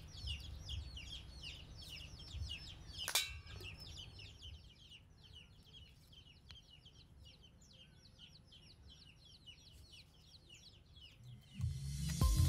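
A bird calling in a fast, steady run of short, high, downward chirps, several a second, with one sharp knock about three seconds in. Background music comes in near the end.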